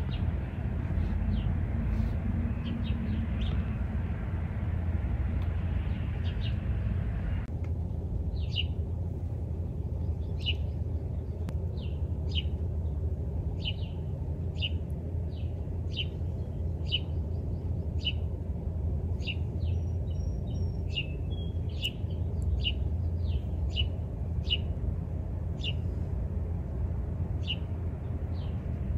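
Eastern chipmunk giving sharp, repeated chip alarm calls, about one to two a second, falling into a steady run about eight seconds in, over a low steady rumble.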